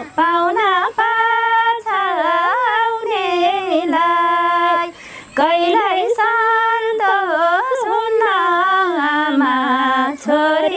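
Two women singing a Nepali folk song together without accompaniment, with long held notes that glide and waver between pitches. There is a short breath pause about five seconds in.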